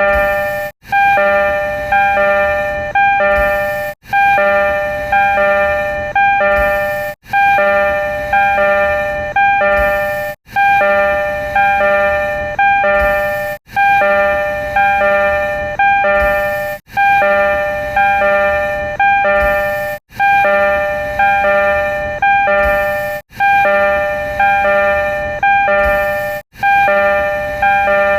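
Door chime of a renovated Tokyo Metro 02 series Marunouchi Line subway car, played over and over: a short electronic melody of several clear notes, starting again about every three seconds, nine times in a row.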